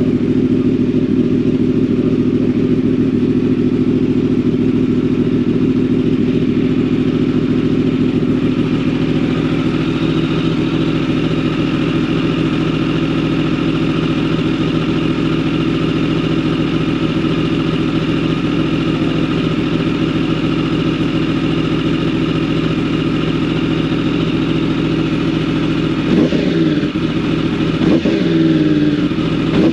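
A 2015 Yamaha R1M's crossplane-crank inline-four with an Akrapovic exhaust runs at a steady warm-up idle under a Race Tools automatic warm-up, which revs the engine on its own. Near the end it revs up and drops back several times in quick succession.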